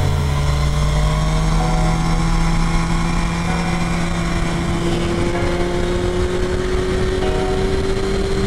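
Sport motorcycle's inline-four engine running at cruising speed on the road, one tone of its note climbing slowly as it gathers speed, with wind rush on the helmet-mounted microphone.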